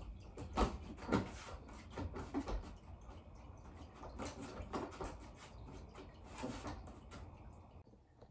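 A person moving about a room: irregular light knocks and thumps, one or two a second, growing fainter near the end.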